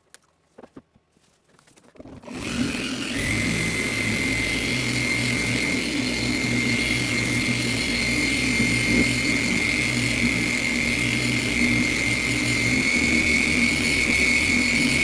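A few light clicks, then an electric machine polisher starts about two seconds in and runs steadily with a high whine and a low hum. It is buffing a one-step polish on a P2500-sanded test surface as a second polishing pass.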